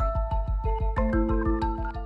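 Background music with a quick, steady low beat and bell-like mallet-percussion notes.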